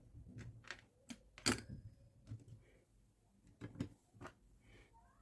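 Scattered small clicks and taps of plastic parts being handled and pried while the BMS circuit board is taken off a Dyson V15 battery pack, the loudest about one and a half seconds in.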